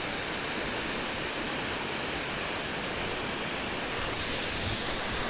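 Steady rush of water pouring over a river weir.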